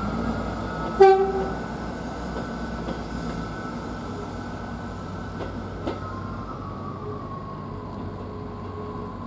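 A single short train horn blast about a second in, over the steady whine and rumble of a train at the station.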